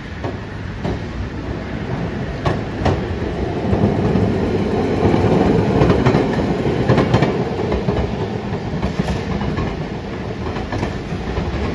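Milan Peter Witt streetcar No. 1815 rolling past on its rails: a rumble that grows loudest about halfway through as the car passes close, then eases as it moves away, with sharp clicks of the wheels on the track.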